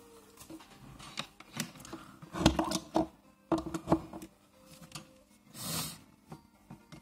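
Clatter and knocks of a hot glue gun and small plastic parts being handled on a desk, in two bursts around the middle, with a short hiss near the end.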